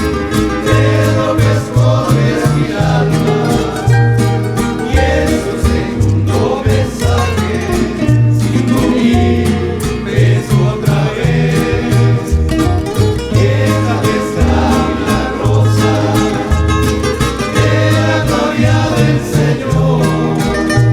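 Rondalla music: guitars strummed and plucked together over a bass line that steps from note to note.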